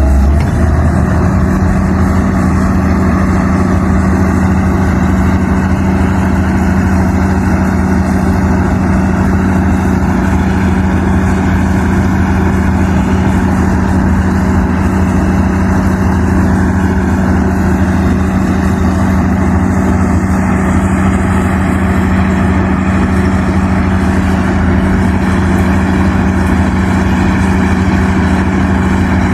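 Excavator's diesel engine running steadily at a constant speed, a loud, even low hum with no change in pitch.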